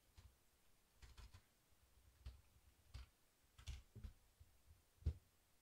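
Faint, scattered computer keyboard keystrokes and clicks, about eight sharp taps spread unevenly over a few seconds, the loudest near the end.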